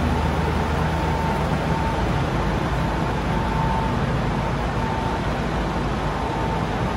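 Steady rumble and hiss of machinery in a ferry's enclosed vehicle deck, with a faint high tone that comes and goes.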